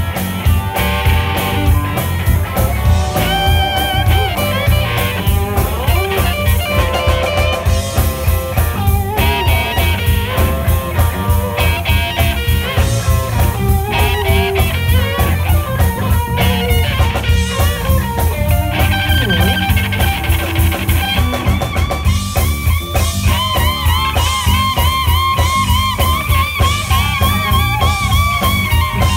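Live blues-rock band: a Telecaster-style electric guitar playing a lead line of bent, wavering notes over bass guitar and drum kit. The high bent notes come thicker and repeat in the last third.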